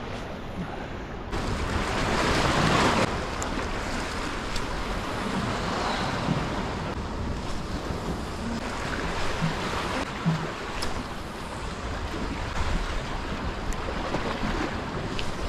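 Ocean waves washing against a rock breakwall, with wind; one louder wave surges in about a second in and falls away by three seconds.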